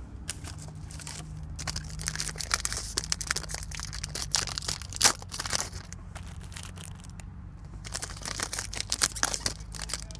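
Crinkling and crackling of a torn foil trading-card pack wrapper and cards being handled, in irregular bursts with a quieter stretch a little after the middle and one sharp crackle about five seconds in. A steady low hum runs underneath.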